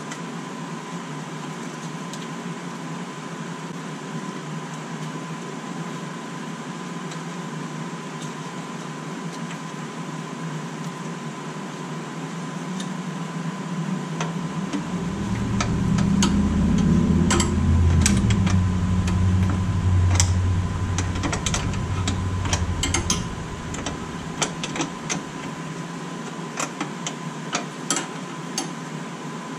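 Steady hum with a faint constant whine, and a low rumble that swells for about ten seconds in the middle. Light metallic clicks and clinks, from a wrench working the brake line fitting at the caliper, come through the second half.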